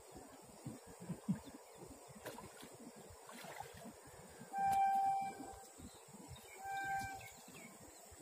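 A vehicle horn sounds twice, a long steady honk followed by a shorter one at the same pitch.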